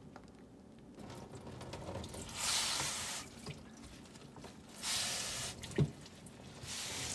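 Water streaming and splattering into a stainless steel sink in three bursts as julienned zucchini is wrung out in a cotton cloth to press out its moisture, with one short knock about two-thirds of the way through.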